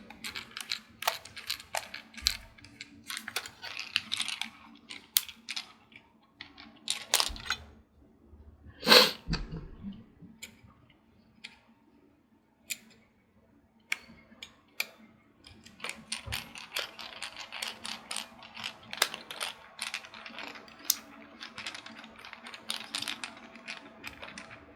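Screwdriver driving small screws into a mini PC's case: a run of light clicks and ticks, with a louder knock about nine seconds in and denser ticking near the end.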